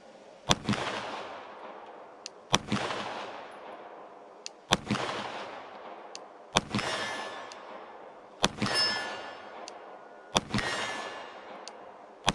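Glock P80 9mm pistol (a Glock 17 Gen 1 reissue) fired in slow single shots, six about two seconds apart. Each shot is followed by a decaying echo with a metallic ring, typical of a hit on a steel target.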